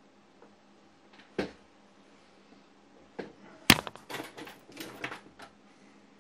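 Knocks on the workbench: a single thump about a second and a half in, then a sharp, loud bang just past the middle as a hand hits the camera, followed by about two seconds of clattering knocks and rattles.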